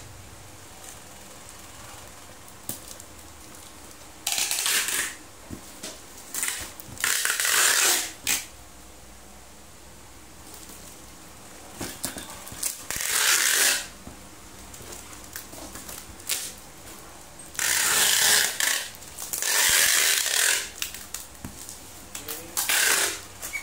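Packing tape being pulled off a handheld tape dispenser onto cardboard parcels, about six pulls of a second or so each, with quieter handling of the boxes in between.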